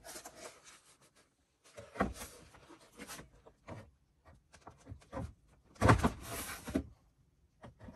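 Plastic computer monitor knocking and scraping against its stand's mounting bracket as it is pushed and shifted into place, with one louder clunk and scrape about six seconds in; the monitor is not yet seating in the bracket's slot.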